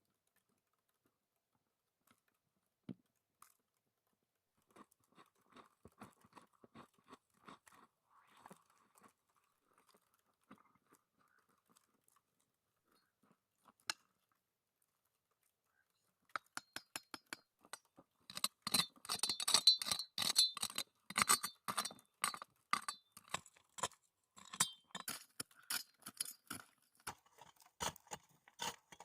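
Irregular crunching and crackling clicks, faint and sparse at first, turning dense and much louder about sixteen seconds in.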